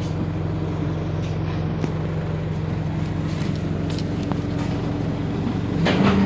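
Bus diesel engine running steadily, heard from inside the bus, with a louder rush of noise coming in just before the end.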